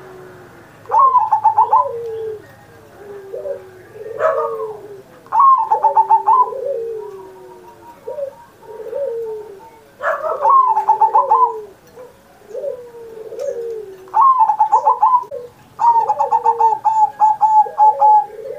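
Zebra dove (perkutut) singing its cooing song in repeated phrases, each made of rapid stuttering notes and lower drawn-out coos, about five bouts in all.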